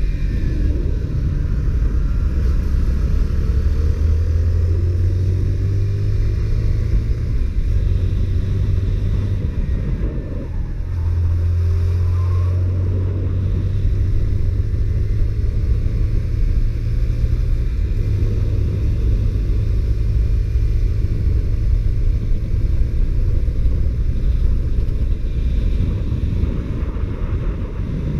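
Honda CBR125R single-cylinder 125 cc four-stroke engine with its stock exhaust, heard while riding. It runs steadily, and its note steps to a new pitch twice, first a little over a third of the way in after a brief dip in loudness, then again past the middle.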